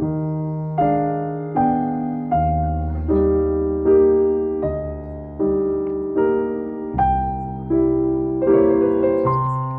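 Background music: piano-like keyboard chords, a new chord struck about every three-quarters of a second, each fading before the next.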